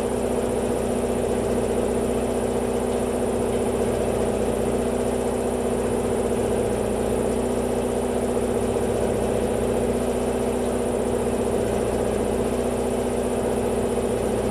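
Workshop air compressor running steadily, a constant motor drone with a fixed hum and a faint high whine.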